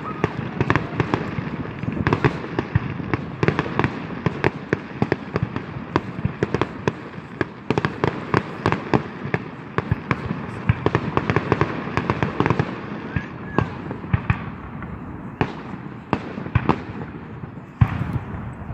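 Fireworks and firecrackers going off continuously: many overlapping sharp bangs and crackles, several a second, over a steady background of more distant bursts.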